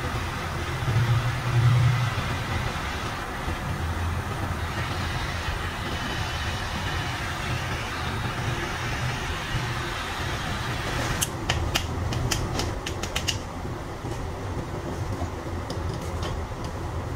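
Kitchen blowtorch flame running steadily with a hiss, caramelizing the sugar topping of a crème brûlée. About eleven seconds in comes a quick run of sharp clicks or taps.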